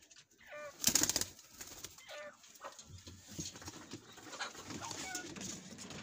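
Domestic pigeons cooing in a loft, with a brief burst of wing flapping about a second in.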